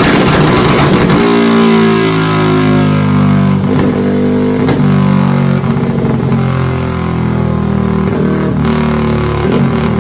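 Modified Yamaha Y15ZR single-cylinder engine running at a steady speed after a short burst of rougher sound at the start, with guitar music mixed in.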